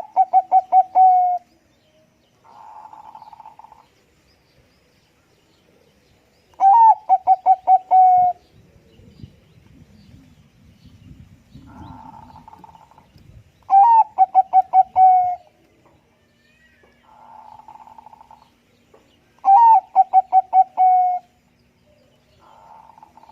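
Perkutut (Bangkok-type zebra dove) song: four loud cooing phrases about six seconds apart, each an opening note followed by a quick rolling run of six or seven notes. Fainter, softer cooing phrases fall between them.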